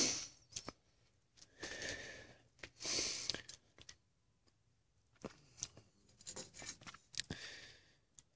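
Handling noise from small metal parts of a Detroit Series 60 DDEC V unit injector: a few light clicks and knocks as pieces are picked up and set down on a steel diamond-plate surface, with a couple of short rustling hisses.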